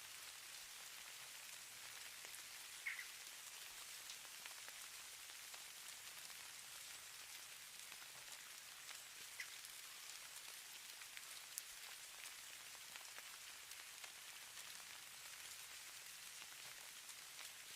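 Falling snow ambience: a faint, even hiss with fine scattered ticks of flakes landing, and a few slightly louder ticks about three, nine and eleven seconds in.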